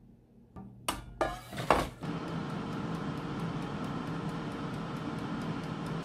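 A few plastic clacks as an air fryer is set, then its fan running with a steady hum while its dial timer ticks about three times a second. The sound cuts off near the end.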